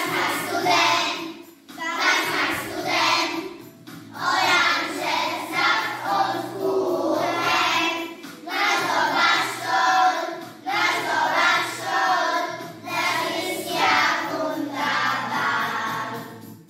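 A group of young children singing a song together in German, in short phrases with brief breaks between them.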